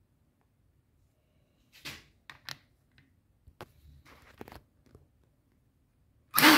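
An impact socket being handled and pushed onto the square drive of a cordless impact wrench: a few light clicks and knocks with some faint rustling. Just before the end a sudden loud burst of sound starts.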